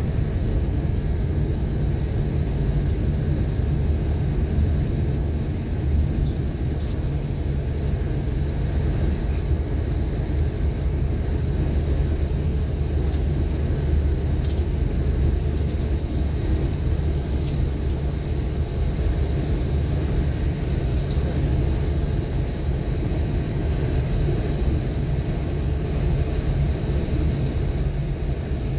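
Steady low rumble of a vehicle's engine and road noise, heard from inside the passenger cabin of a large vehicle, likely a bus, while it drives along a city street.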